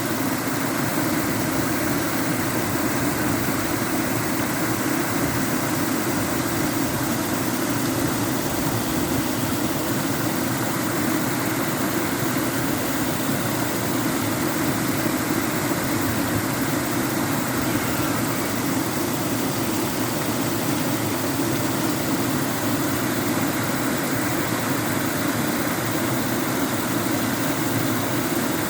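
Water falling from a rock, a steady unbroken rush of splashing water.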